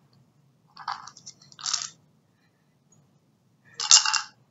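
Dry treats rattling and clattering inside a plastic fish-bowl treat feeder as a cat paws and noses it: two short bursts, then a louder one about four seconds in.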